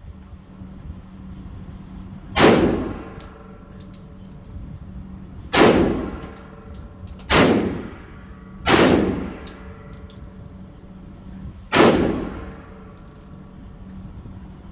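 Five gunshots fired at an uneven pace, each with an echoing tail. Faint metallic ticks come between them.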